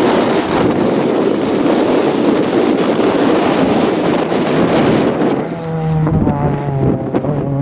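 Renault Clio rally car driving through at speed, a loud rushing of engine and tyres mixed with wind buffeting the microphone. About five and a half seconds in, a steady engine note at a held pitch comes to the fore.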